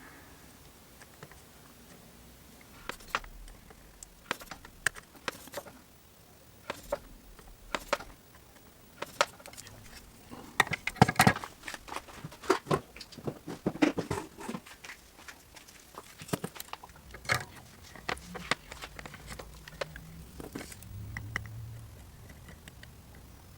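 Irregular light clicks, taps and crackles from hand soldering on a circuit board, as the iron and small tools touch the board and solder joints are reflowed. The clicks come in scattered groups, thickest in the middle, with a faint low hum near the end.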